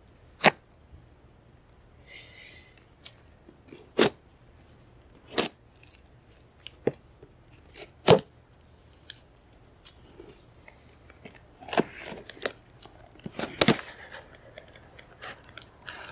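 A knife slitting the tape and cardboard of a shipping box: sharp snaps every second or two, then a longer spell of scraping and cardboard rustling in the last few seconds as the flaps are pulled open.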